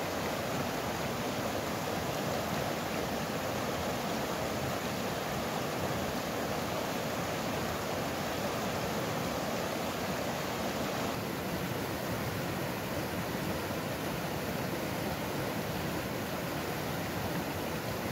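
Fast, shallow mountain stream rushing and splashing over rocks and boulders: a steady, even noise of running water.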